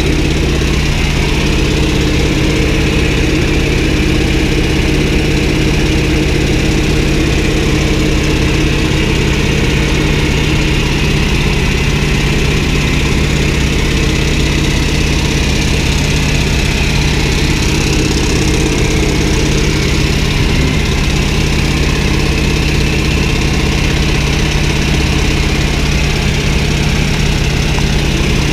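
North American T-28 Trojan's radial piston engine and propeller running steadily in cruise flight, heard from inside the cockpit, with a hiss of air over it.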